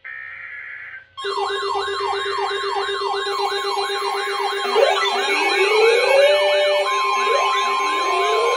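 Electronic siren sounding a rapid falling yelp, about three sweeps a second over a steady tone, starting about a second in; slower rising wails join in about halfway through.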